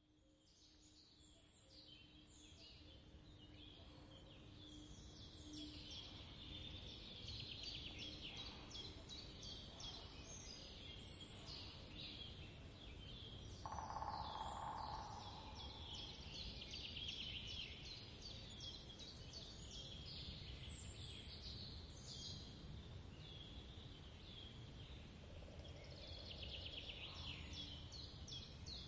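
Small birds chirping, faint: many quick high chirps in close succession, over a low background hum. About halfway through, a louder noise lasts about two seconds.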